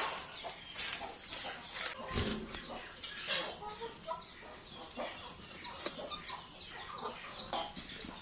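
Chickens clucking, with many short, high, falling chirps repeating throughout and a few sharp clicks.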